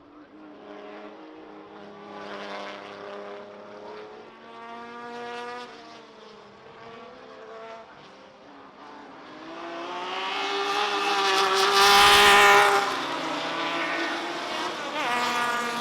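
Historic saloon race cars running at racing speed, several engine notes climbing and shifting in the distance. One car passes close about twelve seconds in, the loudest moment, its pitch dropping as it goes by, and another follows near the end.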